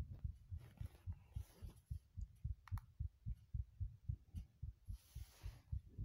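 Heartbeat: a quick, regular run of low, soft thuds. A brief soft hiss comes about five seconds in.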